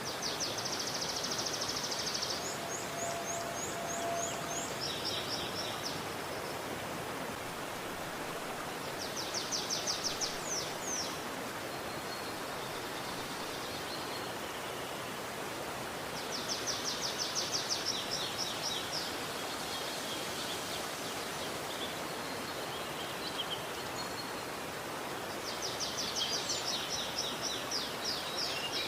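River water flowing steadily, with a songbird singing rapid, trilled high phrases over it in four bouts of a few seconds each, spaced several seconds apart.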